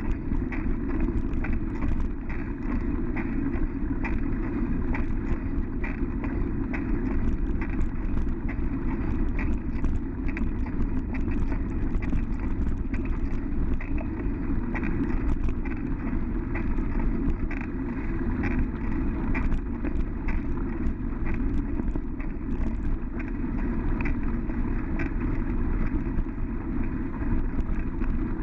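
Bicycle tyres rolling over a sandy dirt trail, heard from a handlebar-mounted GoPro: a steady low rumble with frequent small rattles and clicks as the bike jolts over the ground.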